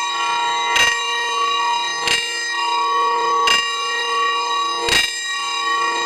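A single church bell tolling: four clapper strokes about a second and a half apart, each ringing on with a sustained, many-toned hum into the next.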